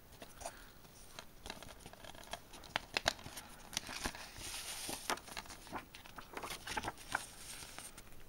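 Clear plastic DVD keep case being handled, with many sharp clicks and ticks of the plastic. Paper rustles as the printed cover liner is worked out from under the case's clear sleeve.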